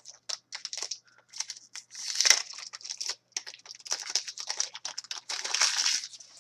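2015-16 SPX hockey trading cards being flipped and slid against one another in the hands, a run of short, crisp rustles and swishes that come thicker in a few spurts.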